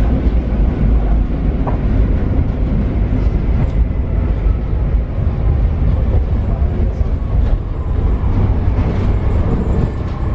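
Paris Metro Line 7bis steel-wheeled train running along the line: a steady low rumble with scattered clicks from the wheels on the track. Near the end, high thin squealing tones set in.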